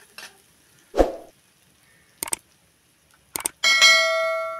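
A dull thump about a second in, then two quick double mouse clicks and a bell-like chime that rings and fades out: the sound effect of a subscribe-button overlay.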